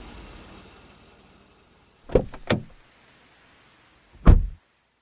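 Car door: two clicks about two seconds in, then a heavy thump of the door shutting near the end. A low car rumble fades away before the clicks.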